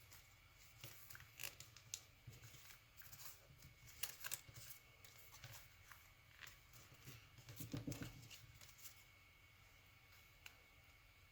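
Paper being handled and folded by hand: faint, scattered rustles and crisp creasing sounds, busiest about four seconds in and again around eight seconds, then dying away.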